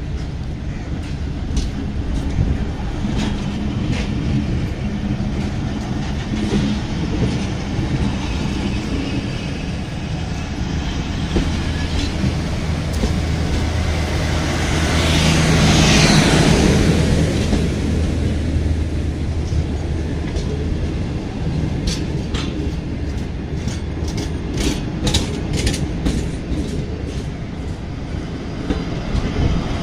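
Passenger coaches rolling past on the rails, with a steady low drone that grows loudest about halfway through as the power van, which carries the train's diesel generator, goes by. Later the wheels click sharply over rail joints.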